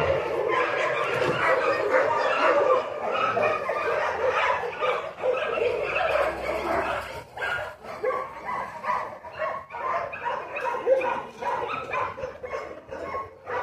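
A black-and-tan shepherd-type dog whining and yipping on and off, running on unbroken at first and breaking into shorter cries after about seven seconds.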